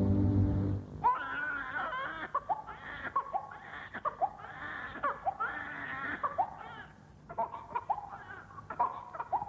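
Infant crying in a run of short, repeated wailing cries that rise and fall in pitch. Held organ music stops about a second in, just before the crying starts.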